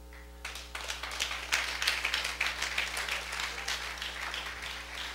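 Congregation applauding, starting about half a second in, strongest in the first couple of seconds and thinning toward the end, over a steady electrical hum.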